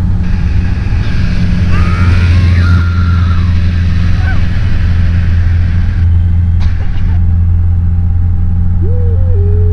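Piston engine of a single-engine propeller aerobatic plane droning steadily, heard loud inside the cockpit during an aerobatic manoeuvre. Brief wavering high-pitched sounds rise over it about two seconds in and again near the end.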